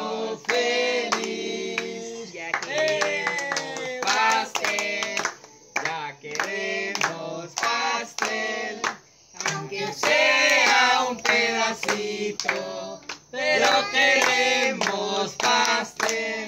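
People singing a birthday song together, with hands clapping along in a steady beat.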